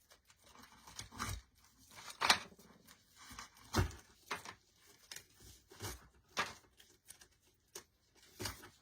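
Artificial decorative picks being handled and pulled apart: irregular crinkling and rustling with scattered light clicks.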